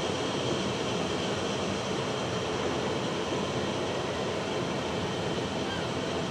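Steady airport background noise: an even drone and hiss with no distinct events.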